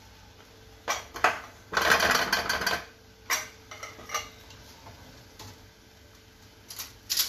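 A spatula knocking and scraping in a steel pan of thick porridge: a few knocks, about a second of rapid clattering stirring, another knock as it is lifted out, then a few light clicks near the end.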